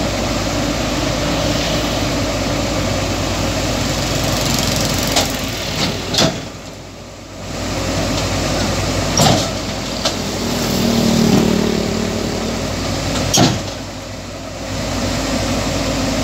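Heavy diesel engine running steadily, broken by several sharp knocks. The sound drops away briefly twice.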